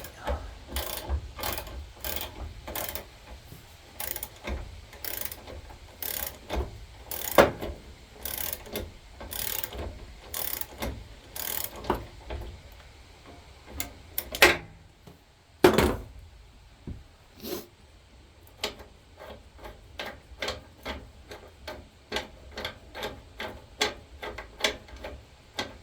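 Ratchet wrench with a socket clicking in a steady run of strokes, about two a second, turning a bolt on a lawn tractor's idler pulley. There are two louder knocks about halfway through, then fainter clicking.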